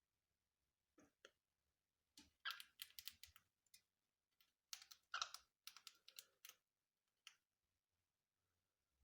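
Faint, irregular clicking and scratching, in two busier clusters about two and a half and five seconds in.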